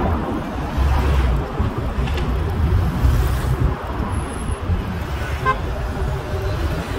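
Road traffic running steadily with a low rumble, and a short car horn toot about five and a half seconds in.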